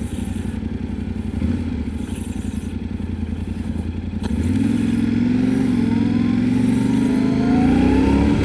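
Yamaha Ténéré 700's parallel-twin engine running under way, getting louder about four and a half seconds in as the revs pick up, with the pitch rising near the end.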